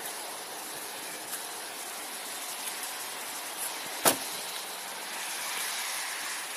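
Steady outdoor hiss of rain and passing traffic on a wet road, broken once by a single sharp knock about four seconds in.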